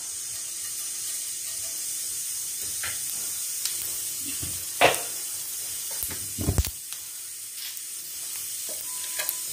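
Cumin seeds sizzling in hot oil in a nonstick frying pan: a steady hiss with a few sharp pops, and a short cluster of knocks past the middle.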